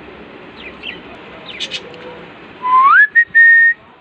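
Faint short downward chirps from budgerigars, then a loud, clear whistled note about two and a half seconds in. The note slides up, is held steady with one brief break, and stops after about a second.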